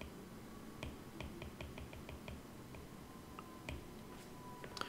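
Faint, quick clicking in short runs of several clicks a second, with a few louder single clicks near the end.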